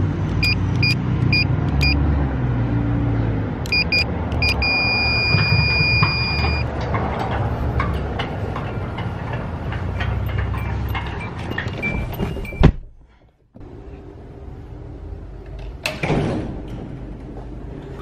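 Car engine running steadily, with a few short electronic beeps and then, about four seconds in, a held beep of about two seconds. The engine sound cuts off suddenly about two-thirds of the way through, leaving quieter background sound.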